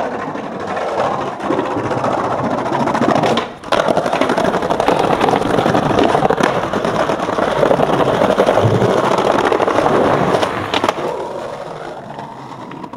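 Skateboard wheels rolling loudly over tiled paving, with a short break about three and a half seconds in that ends in a sharp clack of the board. The rolling fades out near the end.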